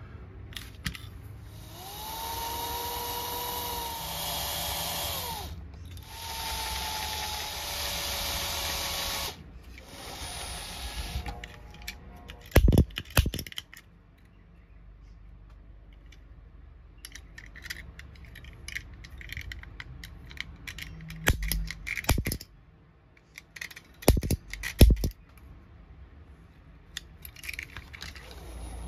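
Cordless drill run in two bursts of about three seconds each, then a shorter one, its motor whining up to speed and winding down each time as it drills out the rivets of a die-cast toy car's baseplate. Later come a few sharp knocks and clicks of small metal parts being handled.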